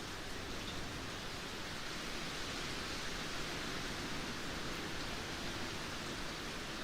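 Steady rainfall, an even hiss of dense rain with faint scattered drop ticks.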